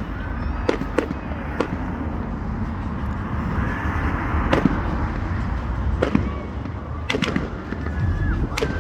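Fireworks display: about eight sharp bangs at uneven intervals, two in quick succession near the end, over a steady rumble, with a spell of crackling a little past the middle.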